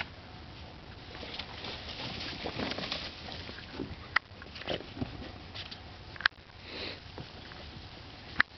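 Puppies sniffing and scuffling through snow, with a few short low grunts around the middle and three sharp, very short clicks spread across it.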